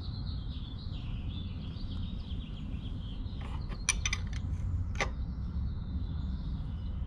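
Hand wrench turning the chain adjuster bolt on a Honda Shadow VLX 600's swingarm, drawing the rear axle back to take up chain slack. A few sharp metal clicks about four seconds in and one more about five seconds in come from the wrench on the bolt.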